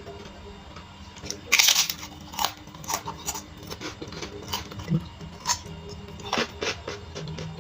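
A person eating crisp fried fish, with a string of sharp crunches and chewing. The loudest crunch comes about one and a half seconds in.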